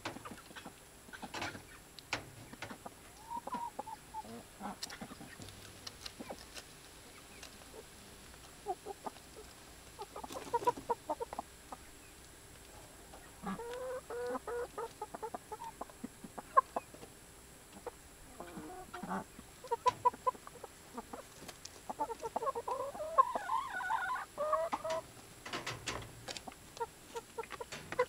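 Chickens clucking in short, scattered bursts, busiest in the second half, with a few sharp clicks in between.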